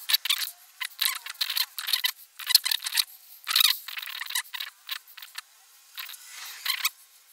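Pencil drawing on paper: quick, irregular scratching strokes, several a second, as the shapes of a figure are blocked in.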